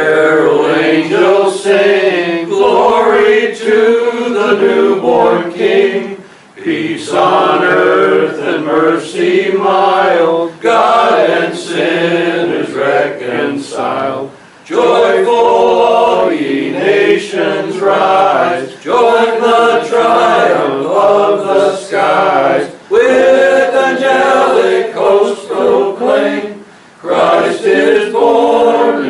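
A small congregation singing a hymn together, in long sung lines with brief breaths between them.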